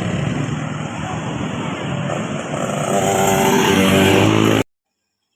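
A large bus engine running loud as the bus passes close by, with heavy road and wind noise. It grows louder over the last couple of seconds, then cuts off abruptly just before the end.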